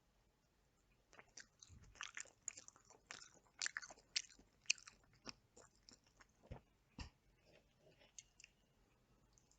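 Close-up mouth sounds of chicken being bitten and chewed: irregular crackly smacks and clicks, busiest a couple of seconds in, with two deeper knocks about two-thirds of the way through, then tapering off.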